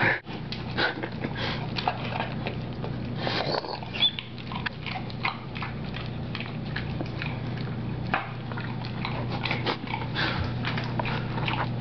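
Pit bull licking and smacking at a ball of peanut butter stuck in its mouth: a rapid, irregular run of short wet clicks and sniffs, over a steady low hum.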